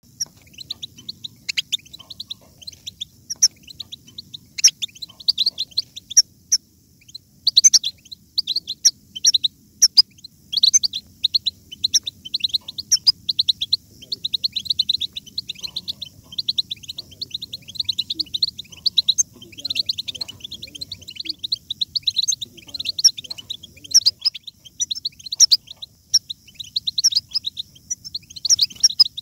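European goldfinch twittering song: a fast, nearly continuous chatter of short, high chirps and trills.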